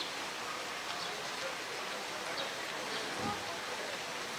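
Steady rushing of running water, an even hiss with no clear rhythm.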